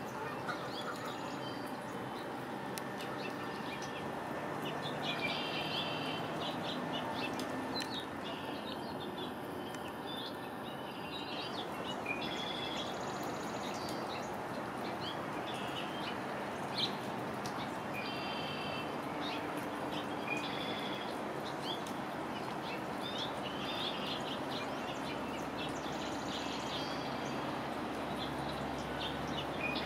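Small birds chirping and calling, short repeated calls scattered throughout, over a steady hiss of rain.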